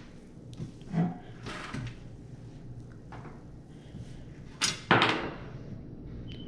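Desktop PC case being handled as its side panel comes off: scattered knocks and rubbing, with a louder sliding scrape about five seconds in.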